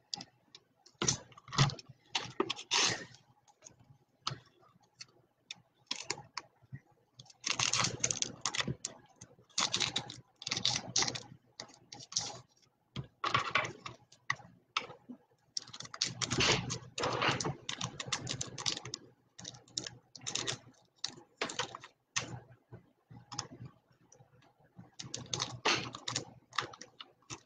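Bursts of irregular small clicks and rustles from hands handling a trading card and its plastic holder, stopping and starting every few seconds.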